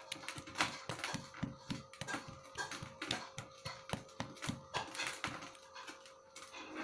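Marinated beef slices being pounded with a pestle in a stone mortar (cobek): a run of soft, quick taps, about two to three a second, that die away near the end. The pounding works the ground spice paste into the meat.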